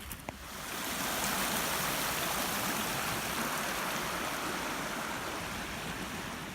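Running water of a stream, a steady rushing that swells in about half a second in and holds evenly.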